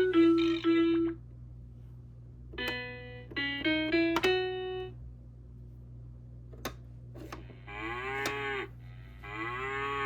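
Electronic toy farm playing short beeping melody snippets through its small speaker, then two clicks of its buttons and two recorded cow moos, each about a second long with a rise and fall in pitch.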